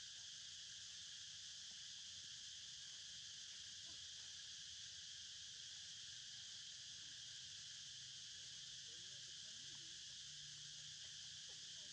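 Faint, steady high-pitched chorus of forest insects, an unbroken drone.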